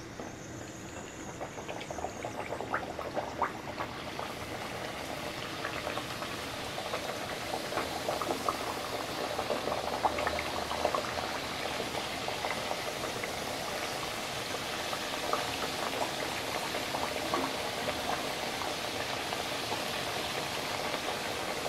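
Masala puris deep-frying in hot oil on a high flame: a steady sizzling and bubbling that builds over the first few seconds as more puris go into the oil, with scattered light clicks.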